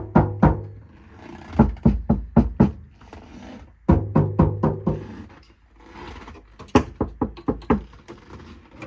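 Rapid runs of knuckle knocks on a 1991 Toyota 4Runner's sheet-metal body panel lined with rubber butyl sound deadener, coming in several quick bursts. The knocking tests how dull the treated panel now sounds.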